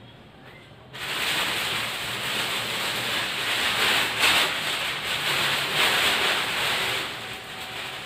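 Large plastic wrapping sheet rustling and crinkling as it is pulled off a refrigerator. It starts about a second in and cuts off suddenly near the end.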